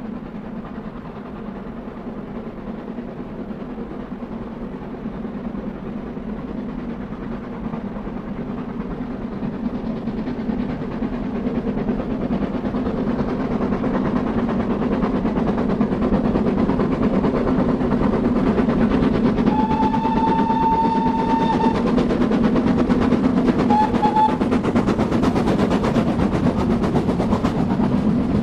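Two steam locomotives double-heading a passenger train at speed, their rapid exhaust beats growing steadily louder as they approach. A steam whistle gives one long blast about two-thirds of the way in and a short one a few seconds later, and the coaches roll past near the end.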